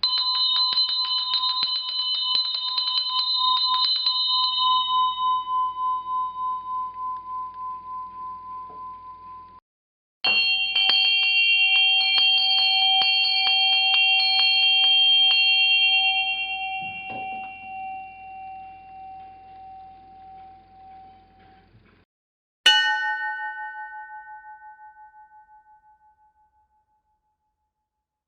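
Small bells, three takes. Twice a small bell jingles rapidly for several seconds and then rings out slowly. Near the end a small bell is struck once and rings away.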